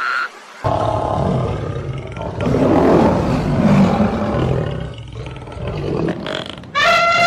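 Animal calls: a long, rough, low roar-like call that grows loudest about two and a half seconds in, then near the end a clear, high, steady call.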